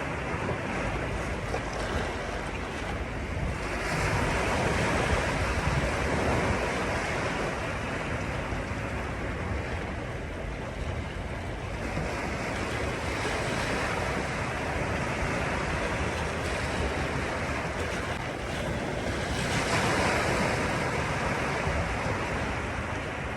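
Sea waves washing onto a beach in a continuous surf, swelling louder about every several seconds, with wind rumbling on the microphone.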